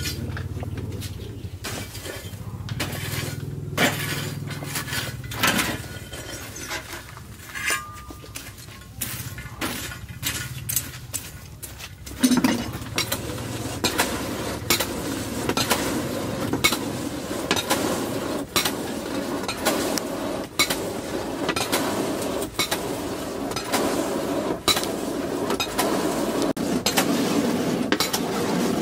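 Hammer blows striking steel, a rapid run of irregular metallic clinks. About halfway through they come more often, over a steady rushing noise.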